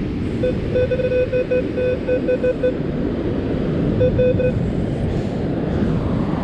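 Metal detector sounding a run of short beeps of one mid tone, in quick bursts over the first few seconds and again about four seconds in, as it passes over a coin target. Under it, a steady loud rumble of wind and surf.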